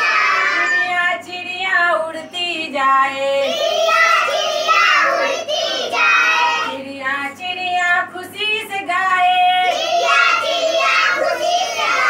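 Young children singing a Hindi counting rhyme together, about ten little birds that fly away one by one.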